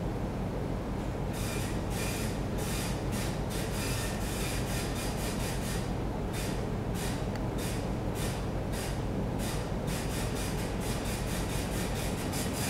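Steady low rumble of a container ship under way, overlaid from about a second in by short, irregular hissing rushes, several a second.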